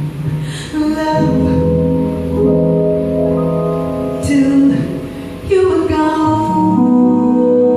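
A woman singing long held notes into a microphone over live band accompaniment of keyboard and double bass, heard through the stage sound system.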